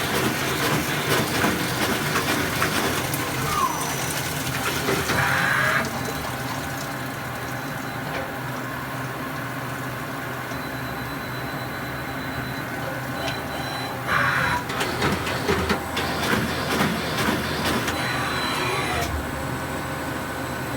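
Miyano CNC lathe running while turning a spacer: a steady machine hum with cutting noise. The cutting is louder for the first six seconds, eases off, then picks up again at about fourteen seconds.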